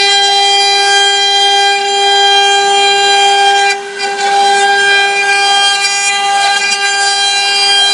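Spindle motors of a six-head cylinder CNC router running, giving a loud, steady high whine with many overtones over a noisy hash. The level dips briefly about four seconds in.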